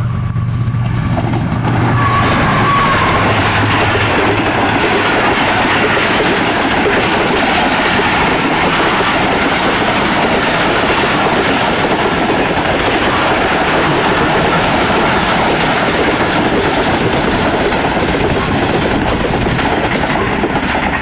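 Pakistan Railways passenger express passing close by: a low engine hum in the first couple of seconds, then a long, loud, steady rush of coaches rolling past with wheels clattering over the rail joints.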